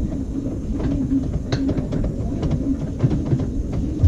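LG 18 kg washing machine running its wash cycle with an overloaded drum: a motor hum that comes and goes, with scattered clicks and knocks from the moving load.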